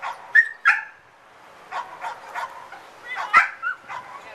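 Boxer dog barking, a quick string of short, high barks and yips, loudest twice in the first second and again at about three and a half seconds.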